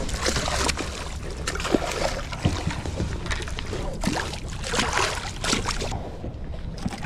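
A hooked bluefish thrashing and splashing at the surface against the side of a boat, in repeated irregular splashes. A steady low rumble, like wind on the microphone, runs underneath.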